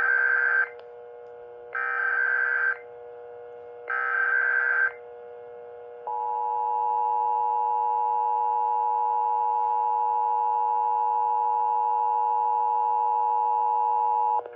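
Emergency Alert System activation. Three warbling, modem-like bursts of SAME digital header data, each about a second long, come at roughly two-second intervals. Then the two-tone EAS attention signal (853 and 960 Hz) sounds steadily for about eight and a half seconds before cutting off.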